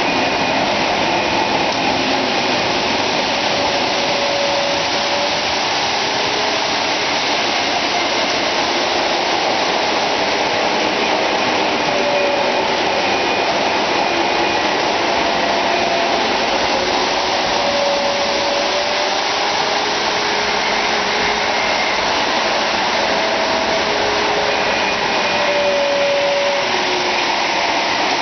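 Several O-gauge electric model trains running at once on three-rail track: a steady loud whir and rumble of motors and metal wheels, with short tones sounding now and then.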